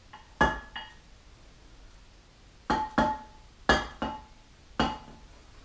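A large kitchen knife clinking against the rim of a stoneware baking dish while a loaf of dough is scored: seven sharp clinks that ring briefly, mostly in pairs.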